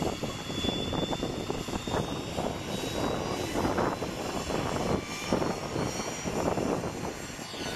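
Aircraft noise from a parked ATR 72-600 turboprop airliner with its propellers not turning: a steady rumble with a faint high whine.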